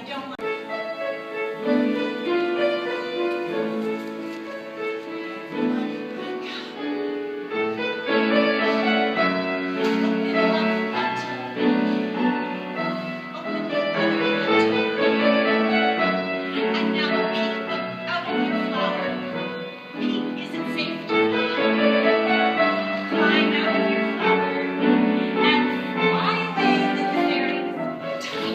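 Piano music playing continuously as a ballet class accompaniment, with notes and chords changing throughout.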